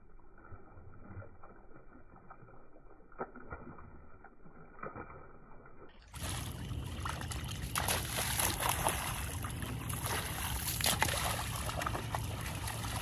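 A dog splashing and wading in shallow water at the shore. It is muffled and faint at first, then louder and clearer from about six seconds in.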